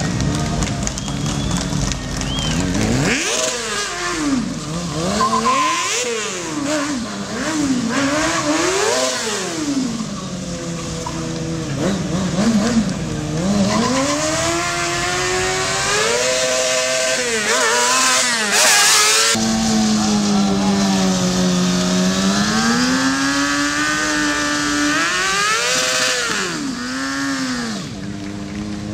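Sport motorcycle engine revving up and down over and over during stunt riding, its pitch climbing and falling every second or so. In the second half the engine is held at high revs for several seconds, with tyre squeal as the rear tyre spins in a burnout.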